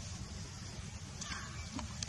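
Steady low background rumble with faint rustling around a second in and a soft click near the end.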